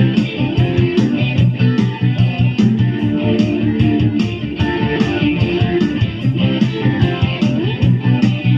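Instrumental music led by guitar, with a steady beat.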